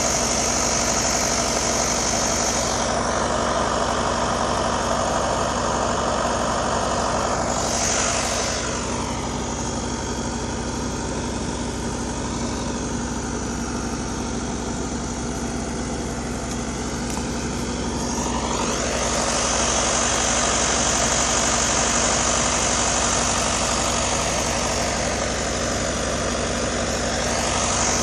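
Forestry forwarder's diesel engine idling steadily.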